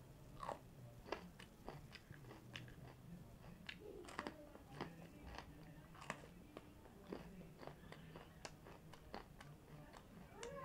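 Faint crunching and chewing as a raw green hot pepper is bitten and eaten, with irregular crisp crunches all through.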